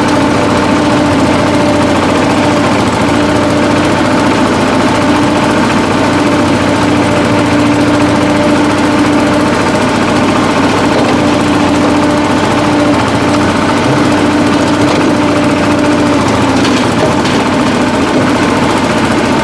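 Shifeng-240 belt-drive mini-tractor's diesel engine running steadily under load while its rear rotary tiller churns through ploughed soil.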